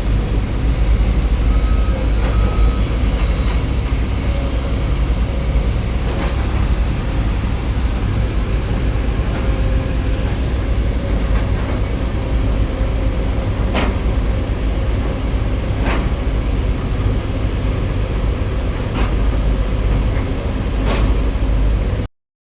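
Excavator's diesel engine running steadily, with a few sharp clicks or knocks scattered through it. The sound cuts off suddenly near the end.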